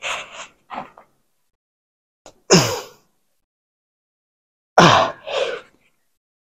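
A man's forceful exhales and grunts of effort during heavy overhead cable triceps extensions: two quick breaths at the start, then a grunt falling in pitch about two and a half seconds in and another about five seconds in, one per rep.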